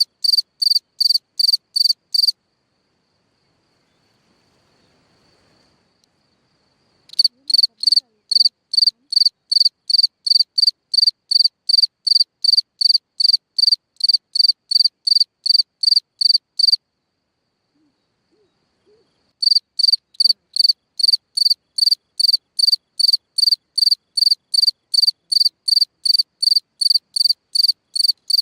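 A cricket calling from its burrow in the ground: a loud, high-pitched chirp repeated evenly about two or three times a second. It falls silent about two seconds in and starts again about five seconds later, then pauses again for a couple of seconds past the midpoint before resuming.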